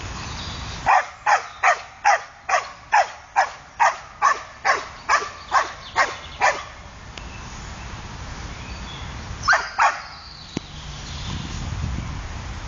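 Podenco dog barking: a quick run of about fourteen barks, two or three a second, growing weaker toward the end, then two more barks a few seconds later.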